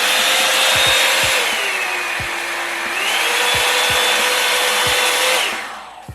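Revlon One-Step hair dryer brush running, a loud fan rush with a whine. Its pitch drops to a lower speed about a second and a half in, climbs back to the higher speed about three seconds in, and the motor winds down as it is switched off near the end.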